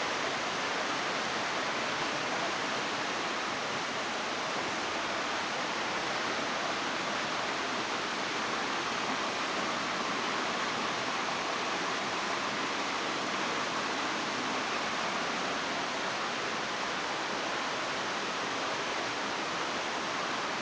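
Steady, unbroken rush of a small waterfall, water falling and splashing over rock.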